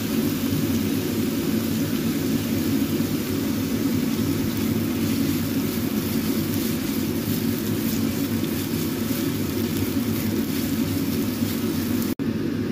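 A steady low mechanical drone, like a kitchen extractor fan, under the faint sizzle of shallots, garlic, lemongrass and galangal frying in a wok as a plastic spatula stirs them. The sound drops out for a moment near the end.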